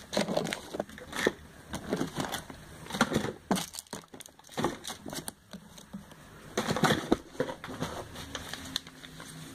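Cosmetics packaging and catalogue paper being handled and moved around in an order box: irregular crinkling and rustling with small knocks, busiest near the start, around three seconds in and around seven seconds in.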